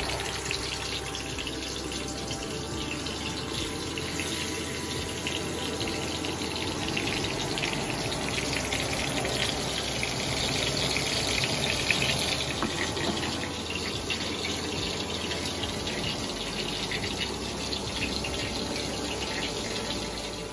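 Salmon fillets sizzling and crackling in hot oil in an aluminium wok, a steady frying hiss that grows louder for a few seconds around the middle.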